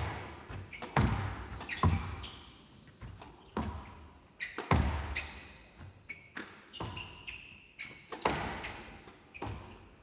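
Squash rally: the ball smacked by rackets and off the court walls, sharp strikes about every second, each fading in the hall's echo. Court shoes squeak briefly on the floor in the second half.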